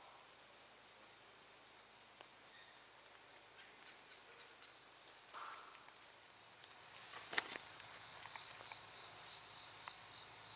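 Faint, steady high-pitched insect drone in a summer woodland, with a single sharp click about seven seconds in.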